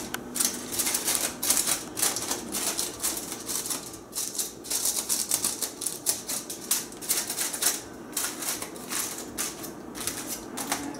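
Aluminium foil crinkling and crackling in irregular bursts of small sharp crackles as it is rolled and folded down by hand around a cone.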